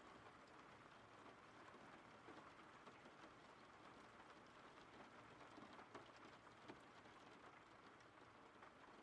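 Faint steady rain, an even hiss with scattered drop taps.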